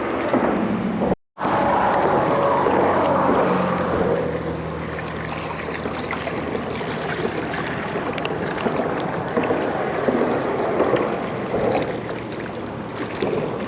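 River water rushing steadily over rocks, a continuous even rush broken by a brief dropout to silence about a second in.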